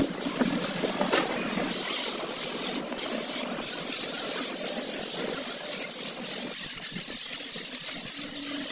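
Wooden hand float rubbed over fresh sand-cement wall plaster: a steady rasping scrape, with a few sharp knocks in the first seconds.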